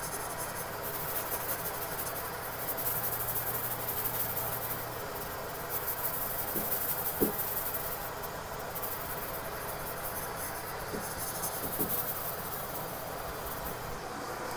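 A cloth rubbed by hand over a fiberglass shower wall, buffing in polish: a steady scrubbing hiss that swells and fades a little with the strokes.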